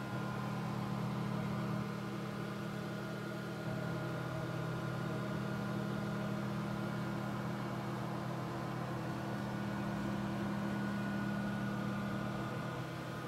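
Steady hum of running laser equipment in the lab: a low electrical and mechanical drone with a couple of faint, thin higher tones, unchanging throughout.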